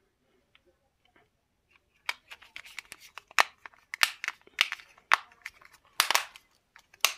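Plastic housing of a Samsung B310E keypad phone being snapped back together, its clips clicking into place in a run of sharp clicks and snaps starting about two seconds in.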